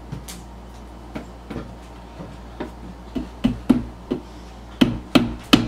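Hammer tapping small nails into the back panel of a flat-pack cube organizer: a few light taps at first, then a quicker run of harder strikes over the last couple of seconds.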